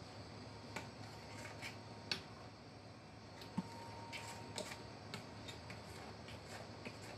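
Spoon stirring a thick mashed-pumpkin mixture in a glass bowl, with small irregular clicks of the spoon against the glass over a faint steady low hum.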